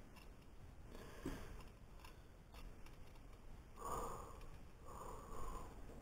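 Quiet handling of a plastic toy remote-control casing, with a few faint clicks, and two short breathy sniffs about four and five seconds in.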